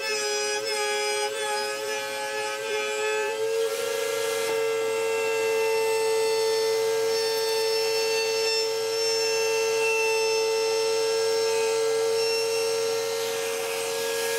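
Table-mounted router running with a steady high whine while plywood is fed against the fence to cut a curved slot. For the first few seconds the pitch dips briefly about every two-thirds of a second as the bit takes load, then it holds steady.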